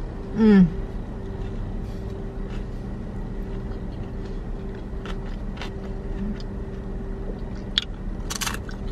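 Chewing a sandwich, with small mouth clicks and then a sharp crunch of a tortilla chip being bitten near the end, over the steady hum of a car. A short 'mm' is heard about half a second in.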